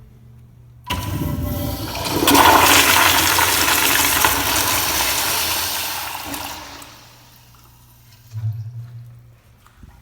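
A public-restroom toilet or urinal flushing: a sudden rush of water starts about a second in, runs loudest for a few seconds and tapers off, followed by a short low thump near the end.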